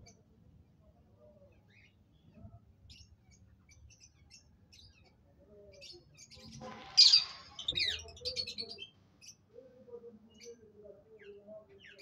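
Aviary birds chirping in short scattered calls, with one loud harsh parrot squawk about seven seconds in, followed by a few quick falling calls.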